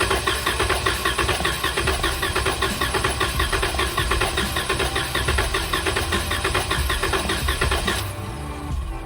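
3.6L V6 engine being cranked over by the starter without firing, for a compression test on cylinder 1, with a steady rhythmic chug of the cylinders coming up on compression. The cranking stops about eight seconds in.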